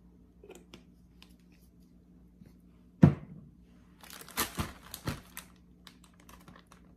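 A single sharp thump about three seconds in, then a plastic food bag crinkling and rustling as it is handled, for about a second and a half.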